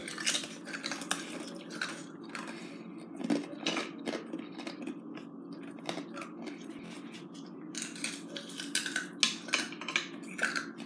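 Scattered light clicks and clinks of broken ice pieces against a plate and a plastic container, with some chewing, over a steady low hum.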